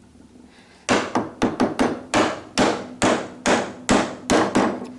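A mallet striking a woodworking chisel driven into timber, about a dozen sharp, quick blows beginning about a second in.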